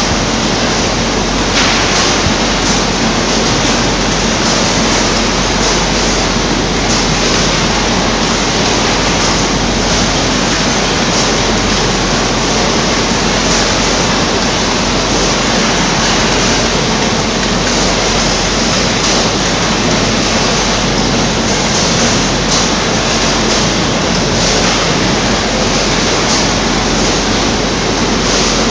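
Steady, loud rush of a citrus packing line running: conveyor belts and fruit-sorting machinery, an even noise with no clear rhythm.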